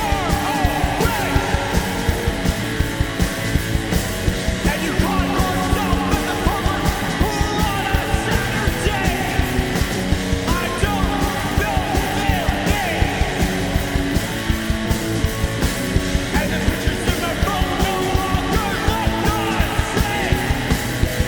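Punk rock band playing live: loud distorted electric guitars, bass and fast drums, with yelled vocals.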